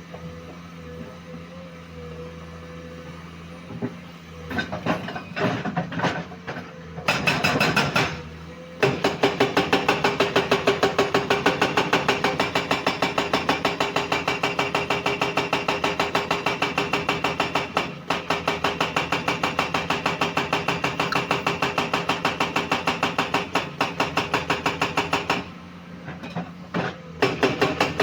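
Komatsu PC210 excavator working: a steady engine hum with scattered knocks, then, about nine seconds in, a loud, fast, even clatter of repeated blows that runs until near the end, pauses briefly, and starts again.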